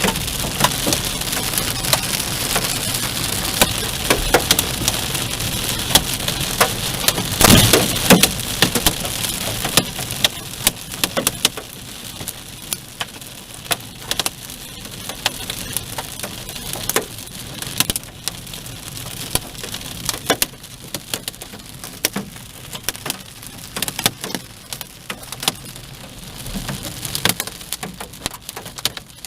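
Heavy rain with hailstones clattering in dense, sharp knocks, and a loud crash about seven and a half seconds in. The downpour eases after about ten seconds, leaving scattered hail knocks over the rain.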